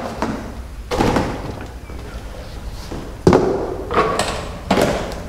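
Four dull thumps and knocks of cardboard packing and parts being handled while unpacking a boxed petrol lawn mower, the second, about three seconds in, the loudest.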